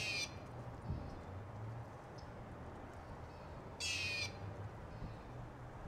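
A bird's harsh call, heard twice, once at the start and again about four seconds later, each about half a second long, over a faint low steady hum.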